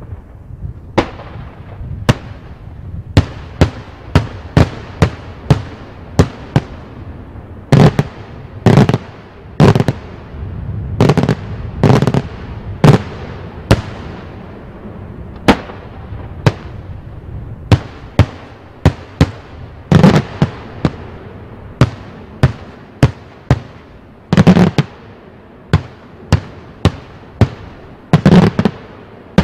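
Daytime fireworks display: aerial shells bursting overhead in an irregular run of loud bangs, about one to two a second, each with an echoing tail. A few heavier bursts land in clusters along the way.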